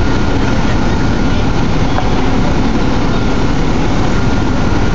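A heavy engine running steadily at idle: a loud, even low drone with a faint steady whine above it.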